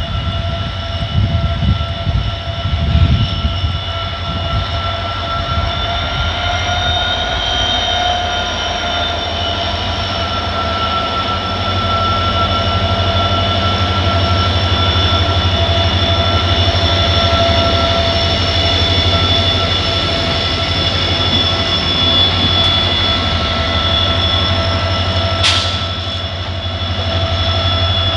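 Indian Railways WDG-4 diesel locomotive (EMD two-stroke V16) passing with a container train: a steady high whine over a low pulsing engine throb, louder as it comes alongside, with a brief sharp sound near the end.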